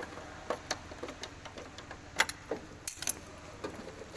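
Screwdriver clicking in screw heads and tapping against the clear plastic housing of a hand push seeder while the screws are checked for tightness: scattered light clicks, the loudest pair about two seconds in.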